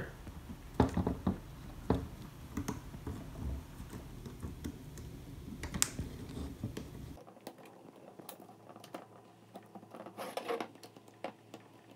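Light, irregular clicks and taps as a locking ring is handled and fitted back onto a CNC vacuum pod over its rubber gasket. A low background hum stops suddenly about seven seconds in, after which the clicks are fainter.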